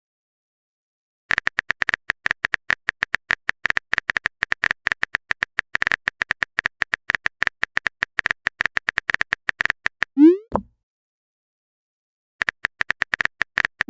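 Phone-keyboard typing clicks, rapid and even, run for most of the first ten seconds. They are followed by a short bloop that rises in pitch: the message-sent sound of a chat app. After a pause of about two seconds the typing clicks start again, and another rising bloop begins at the very end.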